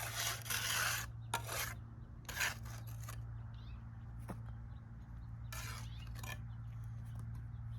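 Mason's trowel scraping mortar on cinder block in several short strokes of up to a second each, with pauses between.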